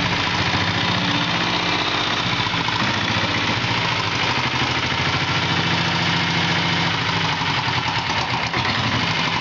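Royal Enfield Bullet with a single-cylinder diesel engine, idling steadily with a rapid, even beat.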